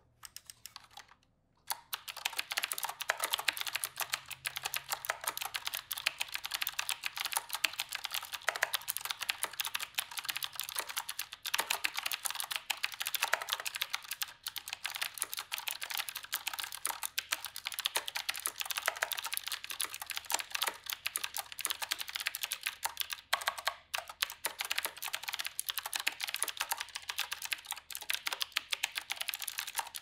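Rapid, continuous typing on a Qwerkywriter typewriter-style mechanical keyboard with round keycaps: a dense clatter of key clicks that starts about two seconds in, with a couple of brief pauses.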